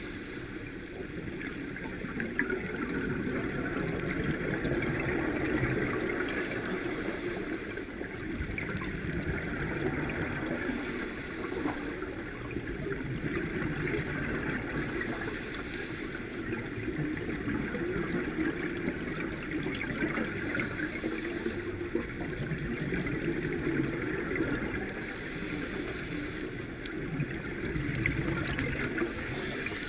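Continuous muffled water noise, as heard through a camera in or near the sea, with a hiss swelling up every four to five seconds.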